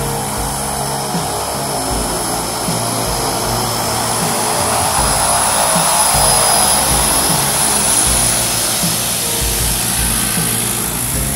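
De Havilland Canada DHC-6 Twin Otter's two PT6A turboprop engines and propellers running as the plane taxis past, growing louder toward the middle and easing off near the end, with a steady high turbine whine. Background music with a steady beat plays underneath.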